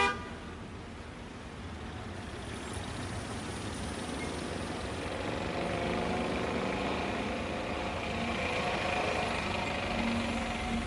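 Small motorised tuk-tuk engine running as it drives along the road, its pitch wavering and the sound growing louder in the second half. A sharp click right at the start.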